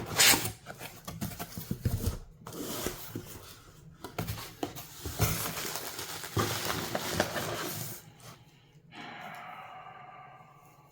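Packaging being handled and unwrapped: crinkling and rustling with small clicks, stopping about eight seconds in.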